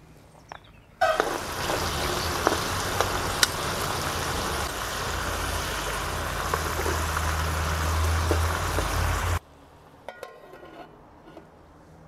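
Shami patties simmering in tomato sauce in a pot: a steady bubbling sizzle with scattered pops. It starts suddenly about a second in and stops abruptly near the end.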